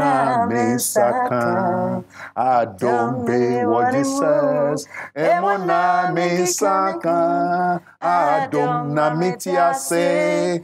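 A man singing a Ghanaian gospel song, with a woman's voice joining in, unaccompanied, in long held and sliding notes with short breaths between phrases.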